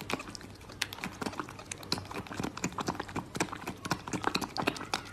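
Kitten suckling on a small feeding bottle: quick wet smacking clicks, about two or three a second.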